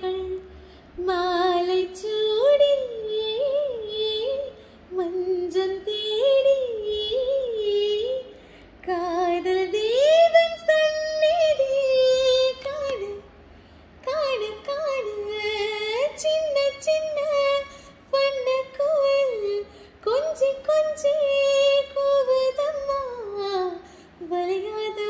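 A woman singing a Tamil song solo, without accompaniment, in melodic phrases of a few seconds each with short breaths between them.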